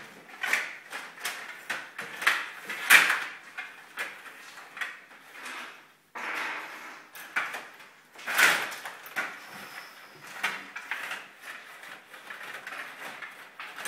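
Stiga table hockey being played: irregular clacks and rattles of the player rods and the puck against the plastic rink, with a brief break about six seconds in.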